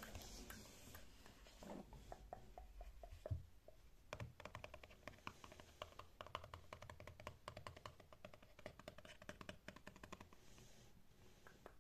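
Fingertips and nails tapping on the cover of a hardcover notebook: a few scattered taps, then a fast run of light taps from about four seconds in.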